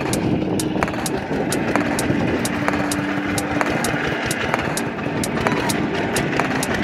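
Single-cylinder diesel engine of a two-wheel walking tractor running steadily as it tows a wooden cart over a rough dirt track, with a regular light clicking, about three a second.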